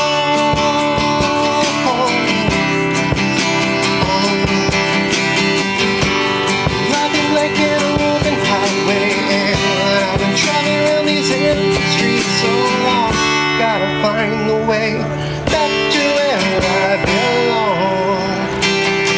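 Live acoustic guitar strummed in a steady rhythm, with a man singing over it from about two seconds in.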